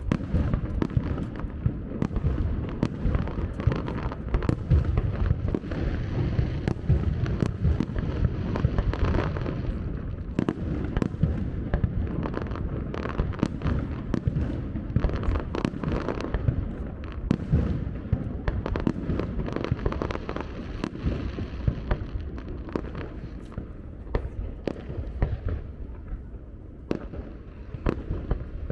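Fireworks display: aerial shells bursting in a dense, continuous barrage of booms and crackles over a steady low rumble. The barrage thins out somewhat over the last few seconds.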